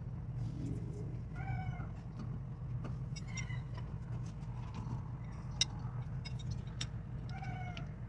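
Nuts being wound by hand onto the studs of a power hammer's cylinder cap, with a few sharp metal clicks, over a steady low hum. A short, high squeak comes every couple of seconds.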